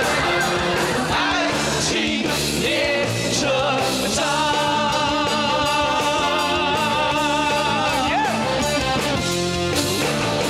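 A male singer sings a pop song with band accompaniment, holding one long note with vibrato through the middle before the line ends.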